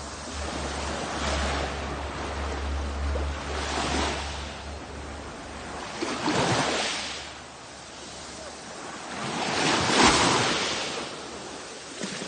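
Sea waves breaking and washing up a shore, swelling in surges every few seconds, the loudest about ten seconds in. A low steady rumble runs under the first few seconds.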